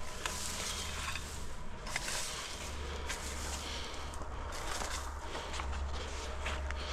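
Footsteps and a steady rustling, with faint scattered ticks over a low, even rumble.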